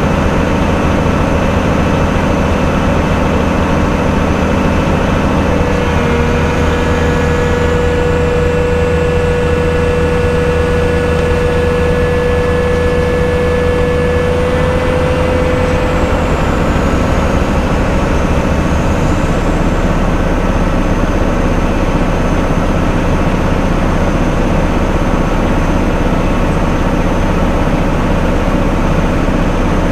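Large engine of heavy machinery running steadily and loudly. A steady whine joins it about six seconds in and fades out about ten seconds later.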